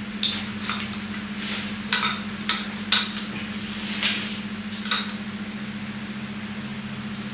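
Metal tube legs of a baby high chair knocking and clicking against each other and their plastic fittings as they are handled and fitted together: about nine sharp knocks in the first five seconds, then they stop. A steady low hum runs underneath.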